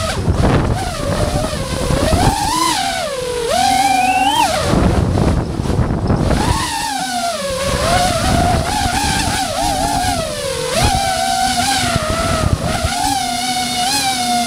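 DJI FPV drone's motors and propellers whining, the pitch sliding up and down as the throttle changes, with a rush of wind noise that swells at times.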